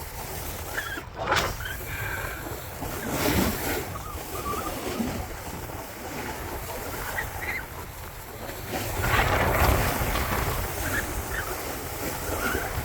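Wind rushing over a handheld camera's microphone while skiing downhill, with the hiss and scrape of skis on snow; the rush surges louder about a second in, around three seconds, and from about nine to ten seconds.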